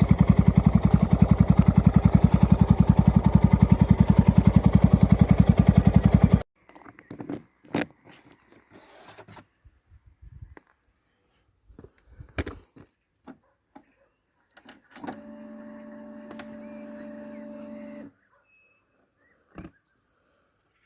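Yamaha YZF-R sport bike running through a Leovince full exhaust with even rapid pulses. It cuts off suddenly about six seconds in. Scattered clicks and knocks follow, then a steady hum for a few seconds.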